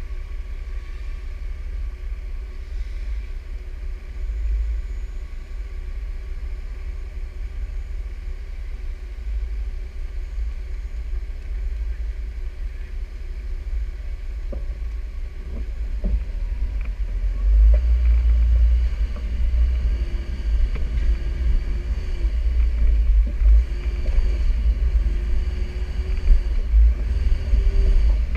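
Off-road Jeep's engine running with a low rumble while it waits and then rock-crawls through a boulder-filled creek crossing. There are a few sharp knocks about halfway through. The rumble grows louder about two-thirds of the way in, as the Jeep moves forward over the rocks.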